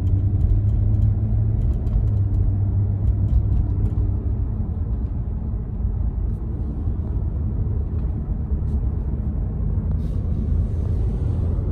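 Steady low rumble of a large vehicle's engine running, with a constant hum and a few faint clicks.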